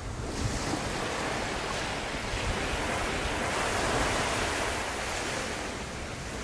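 Sea waves washing in, with wind on the microphone: an even rushing noise that swells towards the middle and eases off again.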